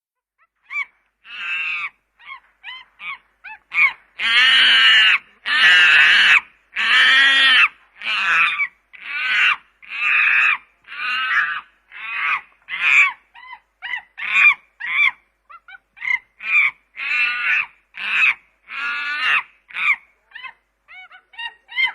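Chimpanzee calling. A few short calls build into three long, loud calls about four to eight seconds in, followed by a rhythmic series of shorter calls, about two a second.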